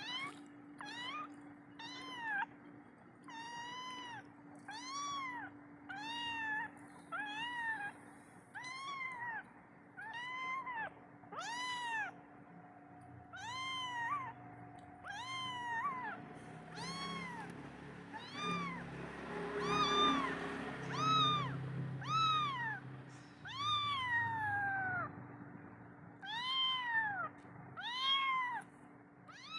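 A kitten mewing over and over, about one high, arching cry a second, each rising and then falling in pitch. It is a kitten separated from its mother, calling for her to feed it.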